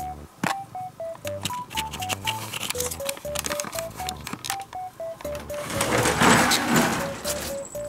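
Light background music: a bouncy melody of short notes over a bass line. Scattered clicks sound throughout, and a louder burst of rustling noise comes about six seconds in.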